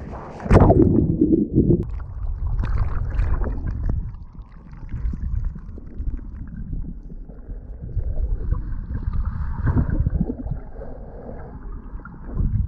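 Sea water heard through a camera in the surf: a wave breaks over it about half a second in, then muffled, low underwater rumbling and sloshing as it is held beneath the surface.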